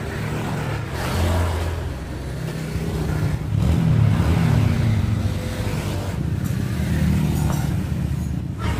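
A motor vehicle engine running, with the revs rising and falling and the sound swelling about three and a half seconds in.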